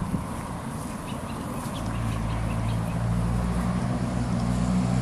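Egyptian geese and goslings giving short, scattered calls, with a steady low engine hum coming in about two seconds in and staying underneath.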